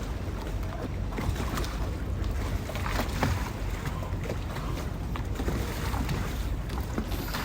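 Canal water lapping and sloshing against moored gondolas, with many small irregular splashes and knocks over a steady low rumble.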